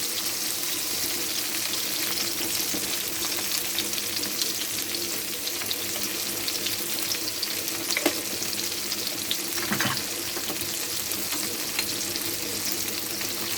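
Shallots and chilies sizzling in hot oil in a pan: a steady crackling hiss, with a couple of sharper clicks about eight and ten seconds in.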